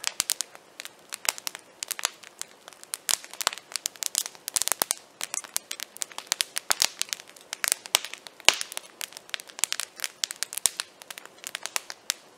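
Wood campfire crackling and popping: irregular sharp pops and snaps, several a second, with a few louder cracks.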